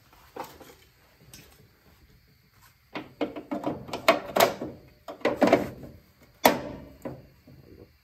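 Metal clanking and scraping as steel parts and a welder's ground clamp are handled around a car's fender bracket. The knocks come in a burst through the second half, the loudest near the end.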